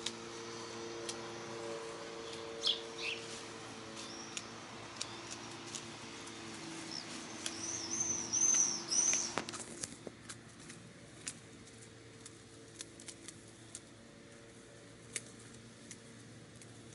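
Birds chirping in a garden where hens are foraging: a few short high chirps near the start, then a run of quick, high chirps about eight seconds in, the loudest part. Light clicks and ticks throughout over a low steady hum that fades after about ten seconds.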